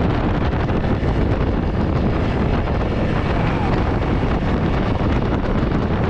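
Heavy, steady wind noise on the microphone of a motorcycle riding at road speed, with the 2021 Honda CRF300L Rally's running underneath it.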